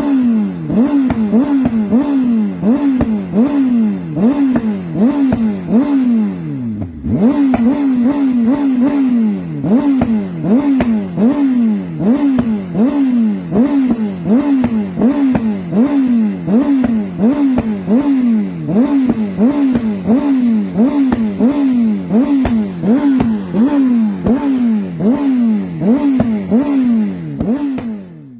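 Honda CBR 600RR's inline-four through an Akrapovič exhaust, revved in quick throttle blips about three every two seconds, each rising sharply and falling back, with pops and crackles from the exhaust as the revs drop. About seven seconds in the revs sink briefly toward idle before the blipping starts again.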